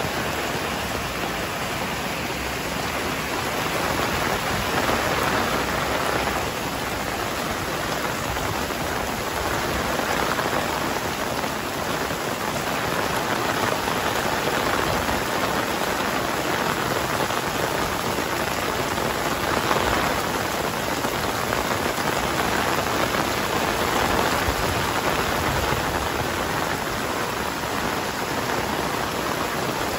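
Heavy rain falling steadily, a dense even hiss of drops on surfaces that swells and eases slightly now and then.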